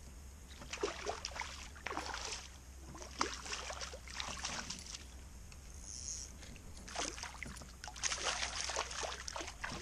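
A hooked fish thrashing and splashing at the water's surface next to the boat, in three irregular flurries of splashes.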